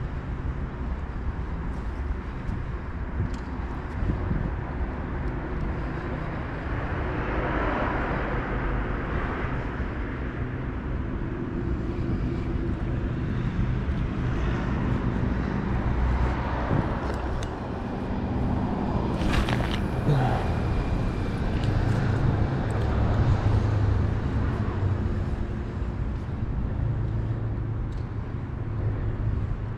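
Road traffic on the concrete bridge overhead, a low rumble that swells and fades as vehicles pass, with one sharp knock about nineteen seconds in.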